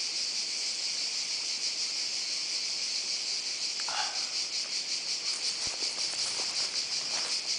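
Chorus of summer insects: a steady, high-pitched shrill buzz that takes on a fast, even pulse in the second half.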